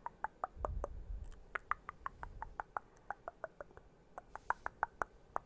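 A rapid, even series of small clicking taps, about six a second, each with a short ring whose pitch steps up and down from one tap to the next. A low thump of handling comes about half a second to a second in.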